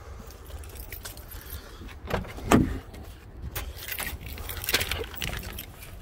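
Keys jangling among a few scattered clicks and knocks, as the car's key is brought to the ignition.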